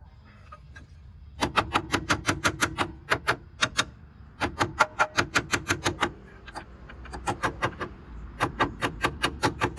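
Rapid, evenly spaced metal-on-metal taps from a hand tool, about six or seven a second, in four runs with short pauses between, while a truck's front suspension parts are being fitted.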